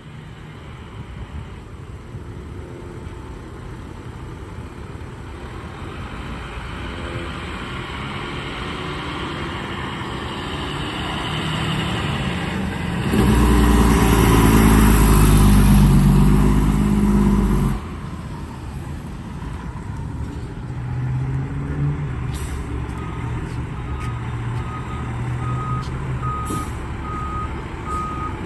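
Pierce Arrow XT fire engine's diesel engine getting louder as it approaches and running loud and deep as it passes close by, then dropping off suddenly. Near the end its reversing alarm beeps steadily, a little over once a second, with a few short hisses.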